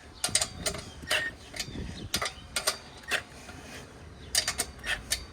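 Irregular metallic clicks, some in quick runs, as a hand screwdriver tightens the mounting nuts of a new condenser fan motor on an air-conditioner's outdoor unit.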